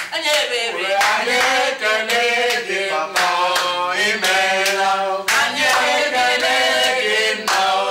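A small group of voices, men and a woman, singing a praise chorus together, with some hand clapping.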